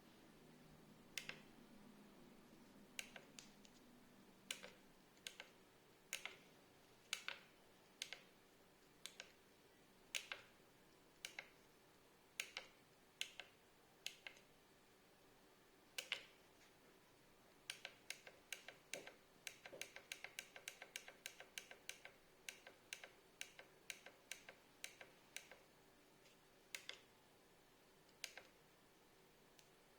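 Keypad buttons on a CCAFN electromagnetic flowmeter head being pressed during configuration: single sharp clicks about a second apart, then a quick run of many presses in the second half.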